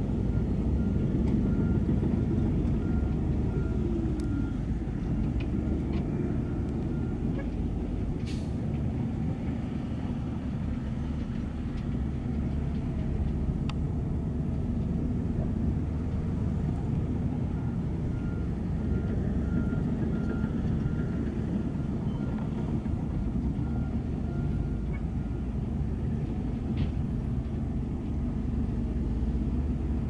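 Heavy diesel construction machinery running steadily, with a reversing alarm beeping about twice a second for several seconds near the start and again in the second half.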